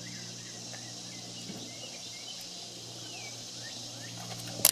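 Outdoor background with faint short bird chirps over a steady low hum. Near the end, a quick run of sharp clicks.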